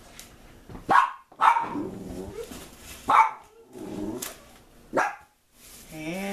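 Excited pet dogs barking, about four sharp barks a second or two apart.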